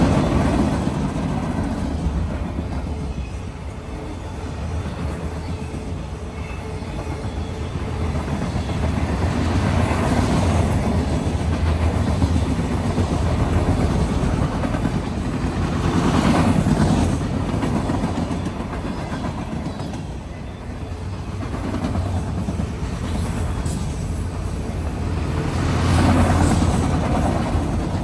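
Boxcars and autoracks of a long freight train rolling past close by: a steady rumble of steel wheels on rail that swells louder several times as the cars go by.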